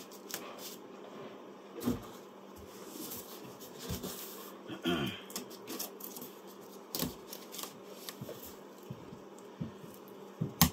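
Knife cutting through packing tape on a cardboard box, with scattered scrapes, rustles and light knocks of the cardboard being handled.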